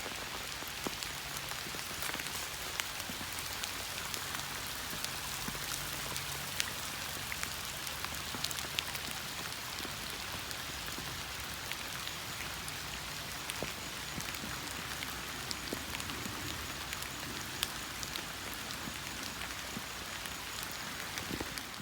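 Steady summer rain falling, with many individual drops ticking on surfaces.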